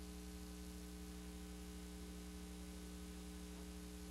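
Faint steady electrical hum with hiss underneath, with no other sound: the noise floor of a VHS tape transfer playing a blank stretch between recordings.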